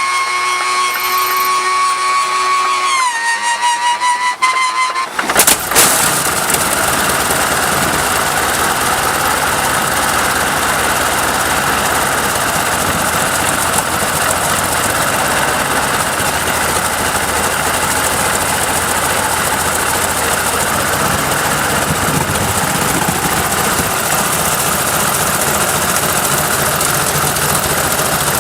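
A large engine being started: a high starter whine that dips in pitch about three seconds in, then a sharp bang about five seconds in as the engine fires, after which it runs steadily and loudly.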